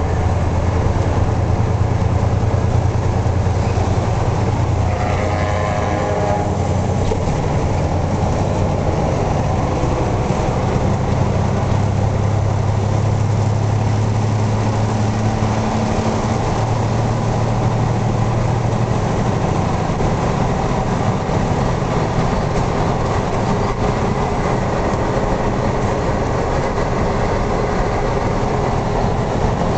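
Steady drone of a heavy tractor-trailer's diesel engine and road noise heard inside the cab at highway speed, the low engine hum shifting in pitch a few times as engine speed changes. A brief higher tone sounds about five seconds in.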